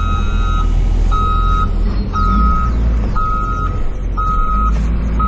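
Vehicle reversing alarm beeping steadily, about one half-second beep per second, with a heavy engine running low underneath.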